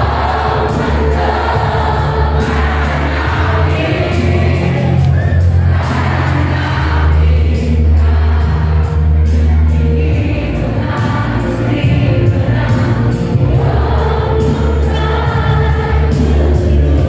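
Stage musical number: a cast of voices singing together over loud amplified backing music with a heavy, steady bass line.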